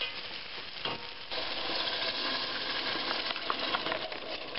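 Sausages and onions sizzling in a stainless steel stockpot, with small clicks of a wooden spoon stirring. The sizzle grows louder about a second in as canned tomato sauce is poured into the hot pot.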